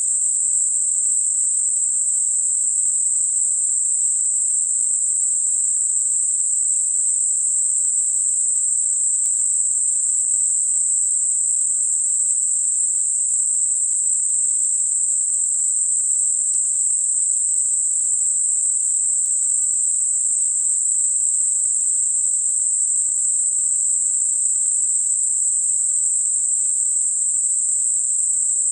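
Synthetic narrow-band noise centred at 8 kHz, tapering off smoothly from about 6 to 10 kHz: a steady, high-pitched hiss used as a tinnitus masker.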